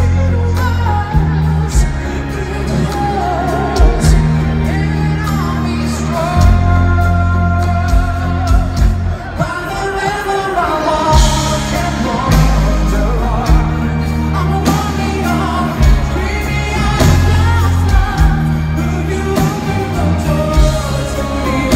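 Live heavy metal band playing a song through an arena PA, with pounding drums, heavy bass and guitars under a lead vocalist singing the melody.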